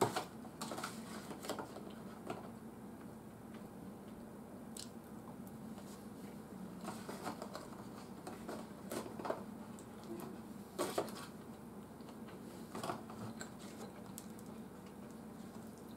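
Quiet eating sounds: a metal fork scraping and tapping in an aluminium foil takeaway tray and foil crinkling as the last of the food is picked out, with chewing, heard as scattered soft clicks and scrapes over a low steady hum.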